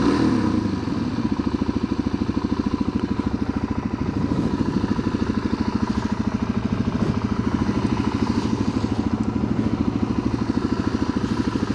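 Motorcycle engine running steadily at low revs, with an even, quick throb of about ten beats a second.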